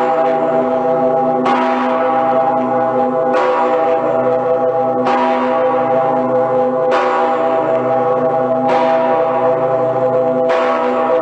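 St. Peter's Bell (the Decke Pitter), Cologne Cathedral's great swinging bell, ringing alone. Its clapper strikes about every two seconds, six strokes here, and each stroke rings on into a steady hum that carries over into the next.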